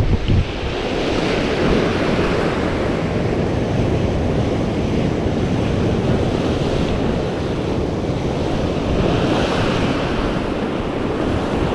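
Sea waves washing and breaking against a rocky shoreline, swelling louder about a second in and again near the end, with wind buffeting the microphone as a low rumble.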